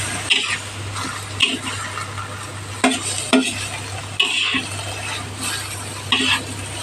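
A utensil stirring and scraping katuray leaves in a cooking pan, in irregular strokes about once a second, over a faint sizzle and a steady low hum.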